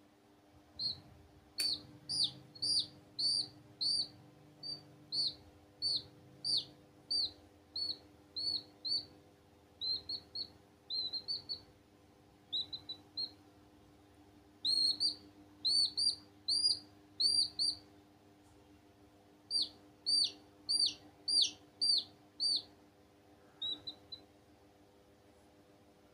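Baby chicks peeping: short, high, downward-falling peeps, a couple a second, in bouts with pauses between, over a faint steady hum.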